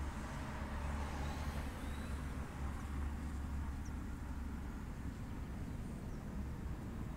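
Steady low outdoor rumble with a few faint, short high chirps scattered through it.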